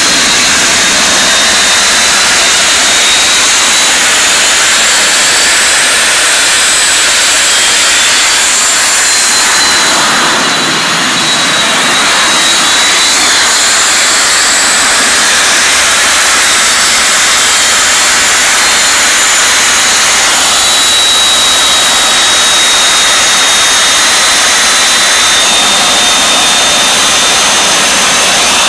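RU-19A-300 small turbojet engine running on a test stand: a loud, steady jet rush with thin high-pitched whines that drift slightly in pitch, dipping briefly in loudness about ten seconds in.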